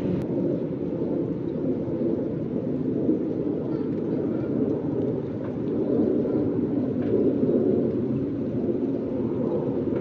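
Wind rumbling across the microphone outdoors in a snowstorm: a steady, low noise that rises and falls slightly in gusts, with one small click just after the start.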